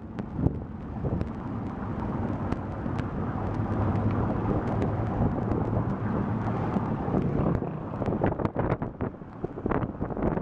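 Songthaew pickup taxi under way, its engine and road noise heard from the open rear with wind buffeting the microphone. From about eight seconds in, the sound turns choppy with irregular sharp knocks and gusts.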